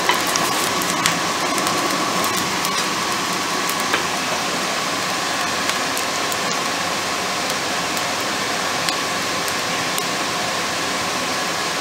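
Whole feed corn burning in a blacksmith's coal forge: a steady rushing noise of the fire with scattered sharp crackles and pops, about one every second or two.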